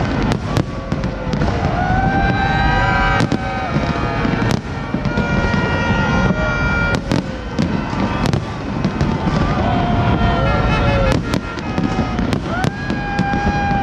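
Fireworks display: frequent sharp bangs of shells bursting, sometimes several in quick succession, over a dense crowd din. Long pitched tones bend up and down above it throughout.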